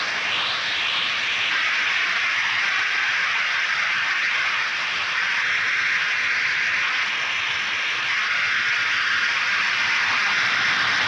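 Harsh noise music: a dense, steady hiss of electronic static, strongest in the upper middle range, with a brief rising sweep right at the start.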